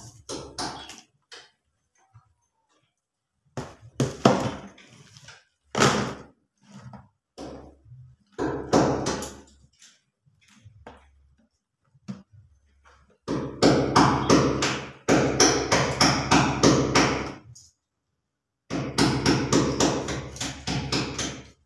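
Petai (stink bean) pods being split open and shelled: sharp cracks and snaps, scattered at first, then coming thick and fast in two stretches of a few seconds in the second half.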